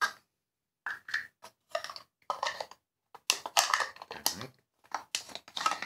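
Router bits and their hard plastic storage cases being handled on a plywood bench top: irregular clicks, taps and rattles that grow busier and louder about halfway through.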